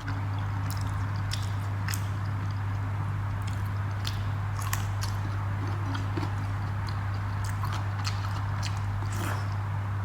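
Close-up chewing and biting sounds of a person eating rice with dal and fried pakoda, with small irregular mouth clicks, over a steady low hum.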